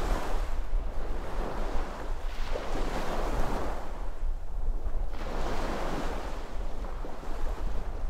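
Ocean waves breaking and washing up the shore, swelling and fading about three times, every two to three seconds. A steady low rumble of wind on the microphone lies underneath.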